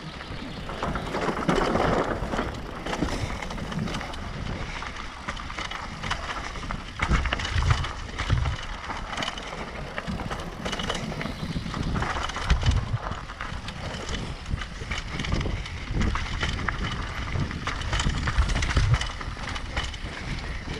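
Mountain bike descending a dirt downhill trail: continuous tyre noise on loose dirt and gravel with the bike rattling, broken several times by heavy thumps as it hits bumps.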